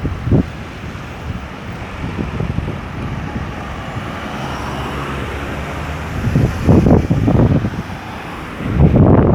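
Road traffic, vehicles passing steadily, with two louder low rumbles, one about two-thirds of the way through and one near the end.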